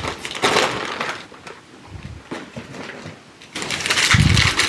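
Packaging being handled and crinkled while a box's contents are unpacked. The crackling grows louder about three and a half seconds in, with a dull bump near the end.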